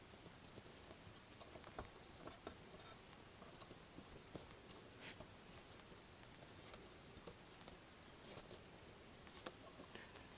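Near silence with faint, scattered light clicks and scratches: small parts and screws of a TV stand being handled and fitted by hand.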